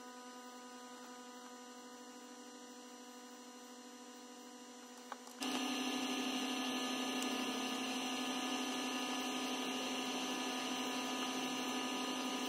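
Steady electric hum of a small egg incubator's fan motor. A single click comes about five seconds in, and just after it the hum is louder and fuller.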